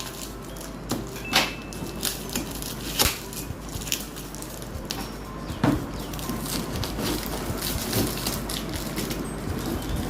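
Skateboard's cardboard box being opened and handled: crackling and rustling of packaging with a few sharp snaps.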